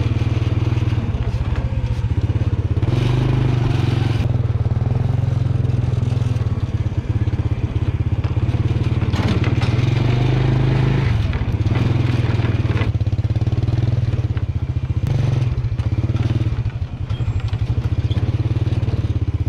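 Motorcycle engine running steadily while riding. Its pitch drops briefly a little past halfway through and again a few seconds later.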